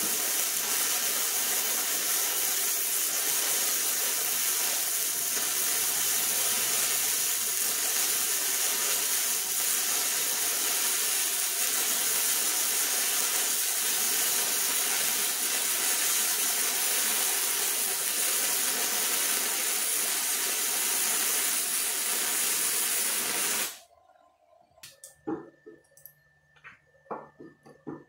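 Arc of an AWT MIG 100 handheld flux-core welder, a steady hiss as it lays a bead on beveled quarter-inch steel plate, cutting off suddenly about 24 seconds in. A few light clicks and knocks follow.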